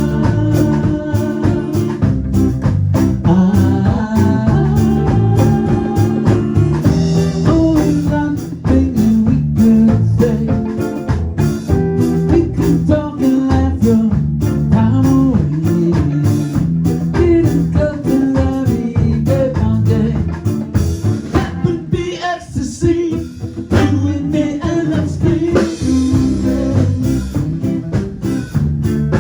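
A band playing a blues-style song with singing, guitar and drums, at a steady beat.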